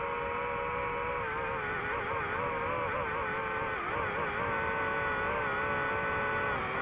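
DJI FPV drone's motors and propellers whining steadily, a stack of tones that from about a second in wavers up and down together as the throttle changes.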